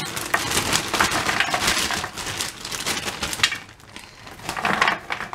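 Plastic bag of frozen seasoned potato wedges crinkling as the wedges are shaken out and clatter onto a metal baking tray, a dense run of rustles and small knocks that eases off briefly about four seconds in.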